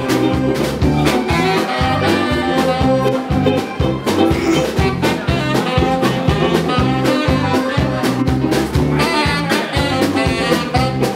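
Live band playing an instrumental break between sung verses: a saxophone plays over a steady swing beat with bass and chords.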